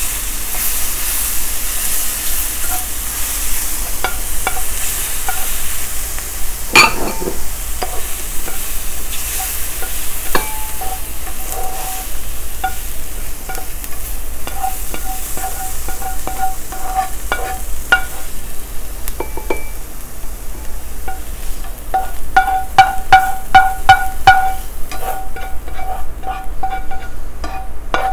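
Browned mushrooms sizzling in a skillet as a metal spoon scrapes them out into a bowl. Near the end the spoon knocks against the pan in a quick run of ringing taps.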